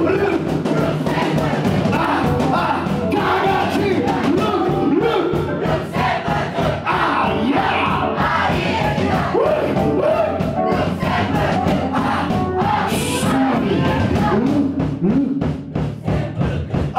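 Punk rock band playing live, with drums and electric guitars, and the crowd singing and shouting along.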